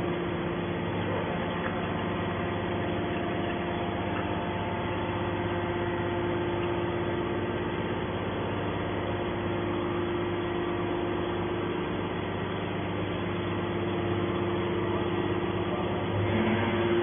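Hydraulic can baler's motor and hydraulic pump running with a steady hum.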